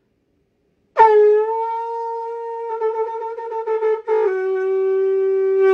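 A horn blown in one long, steady note that starts about a second in, drops to a slightly lower pitch about three seconds later, holds there and then stops.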